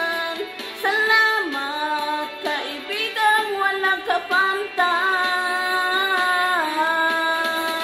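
A woman singing a slow Tagalog ballad into a handheld karaoke microphone, holding long notes that slide from one pitch to the next, with short breaks between phrases.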